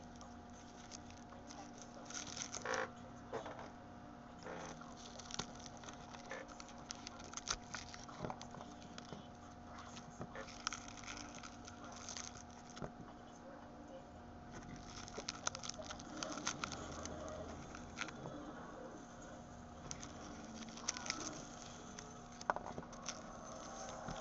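A garlic bulb being broken apart into cloves by hand on a wooden cutting board: irregular crackling and rustling of the papery skin, with small clicks as cloves snap off and are set down.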